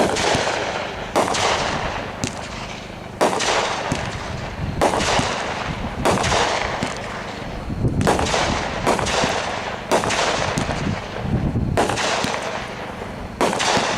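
Black Cat 'Stonewall' 20-shot fireworks cake firing: a string of sharp reports, about one every one to two seconds, each followed by a fading rush of noise from the burst.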